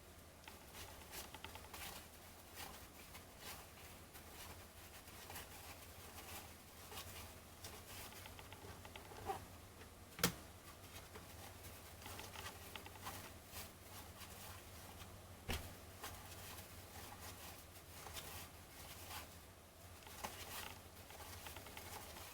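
Faint rustling and sliding of trading cards being thumbed through by hand, with many small clicks, a sharp tap about ten seconds in and another about fifteen seconds in.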